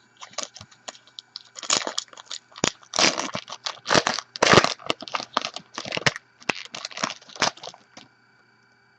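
Foil trading-card pack wrapper being torn open and crinkled by hand: a run of sharp, crackly rustles over about eight seconds, then stopping.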